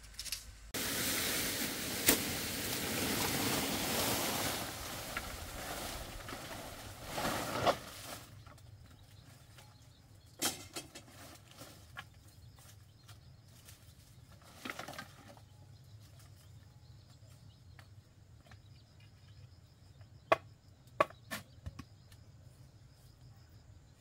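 Several seconds of loud rustling and scraping, then scattered sharp wooden knocks and taps from bamboo being handled and fitted.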